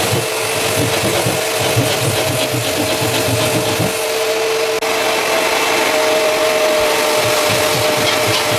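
Vacuum cleaner running with a steady whine while a hand drywall saw rasps through a drywall ceiling in uneven strokes.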